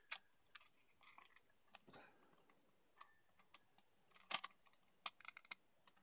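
Faint small plastic clicks and rattles from a CPU cooler's clear plastic protective cover and its push-pin mounting clips being handled, with a short cluster of clicks about four seconds in and a quick run of clicks a second later.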